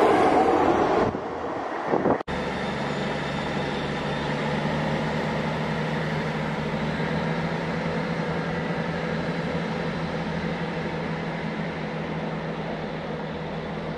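An East Midlands Trains diesel multiple unit running past close by, loud until it drops away about a second in. After a brief break, a steady low diesel engine hum from another diesel unit down the platform.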